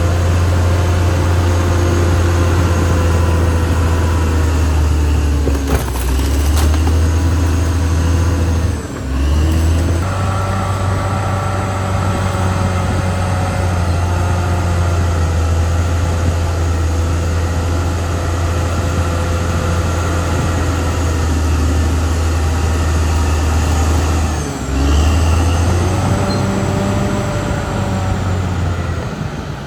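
Caterpillar D6R XL bulldozer's diesel engine running steadily under load while it works, its note dropping briefly twice, about nine seconds in and again about twenty-four seconds in. A few sharp knocks come about six seconds in.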